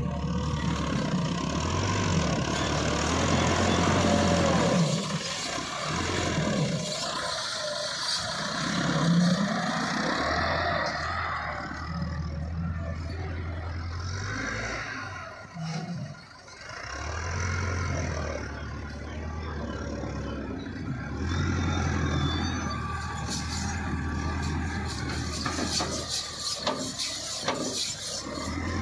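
Tractor engines running, their speed and loudness rising and falling as a front-loader tractor works its bucket over a soil-filled trolley. Near the end, clods of earth drop from the bucket into the trolley with a scatter of knocks.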